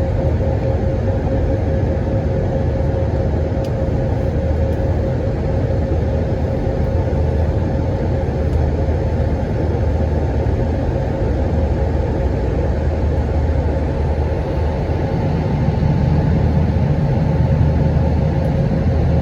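Steady roar of jet engines and rushing air inside the cabin of an Airbus A319 airliner climbing after takeoff, with a steady hum running through it. The low rumble grows a little louder about fifteen seconds in.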